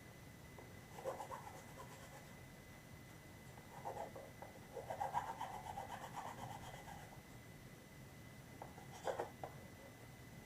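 Hand-sanding a 3D-printed plastic prop part: faint, scratchy rubbing strokes come in short spells, with the longest run in the middle.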